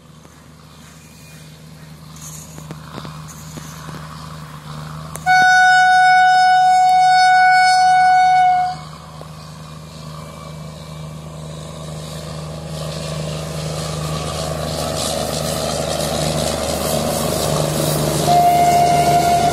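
Electric locomotive's air horn sounding one long blast of about three and a half seconds, over the running noise of an approaching passenger train that grows steadily louder. A second horn blast begins near the end.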